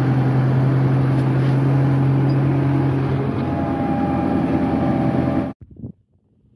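Tractor engine running steadily under load, heard from inside the cab, with a steady low drone; it cuts off suddenly about five and a half seconds in.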